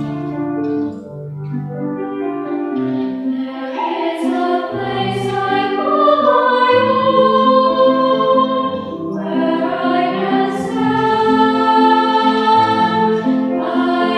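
Children's choir of girls singing with piano accompaniment. The piano plays alone at first, and the voices come in about four seconds in.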